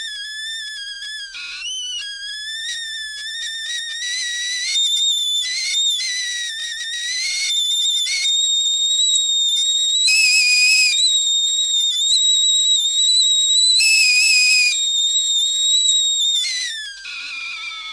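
Tea kettle whistling at the boil: the whistle wavers at first, jumps up to a higher, shrill pitch about four seconds in and holds it steadily, with surges of hissing steam. Near the end it falls in pitch and dies away.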